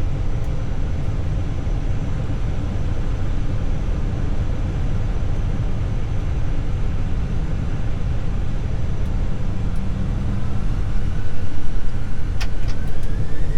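Airbus A320's CFM56-5B4 turbofan engines heard from the cockpit: a steady low rumble, then about ten seconds in a rising whine as the engines spool up to takeoff thrust, growing louder. A few sharp clicks come near the end.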